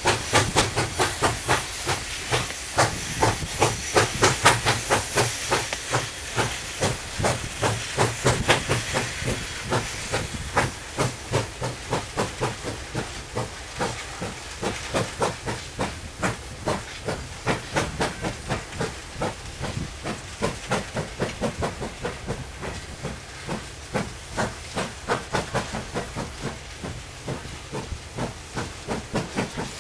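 SY-class 2-8-2 steam locomotive working hard to keep a heavy loaded coal train moving: sharp, regular exhaust beats from the chimney, about three a second, over a steady hiss of steam. The beats grow fainter as the engine draws away.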